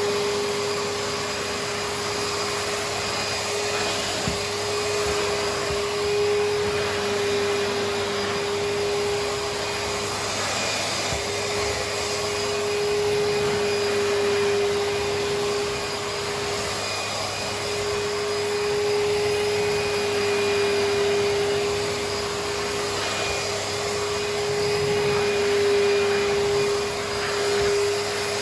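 Numatic George wet vacuum running in carpet-cleaning mode, its motor a steady whine with the rush of suction as the floor tool is worked over the carpet. The motor note dips briefly a few times.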